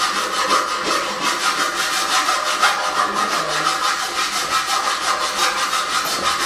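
Metal profiles being cut by hand with a saw: steady back-and-forth sawing strokes, a few a second.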